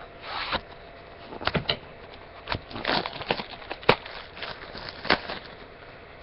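Trading-card packaging and cards being handled: irregular clicks, taps and short rustles of cardboard and pack wrappers, with a sharper click about four seconds in.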